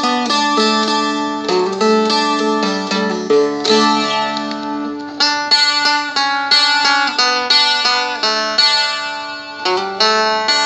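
Seagull Merlin, a four-string diatonic strumstick-style dulcimer, being picked: a melody of quickly struck notes over one steady drone note that rings throughout.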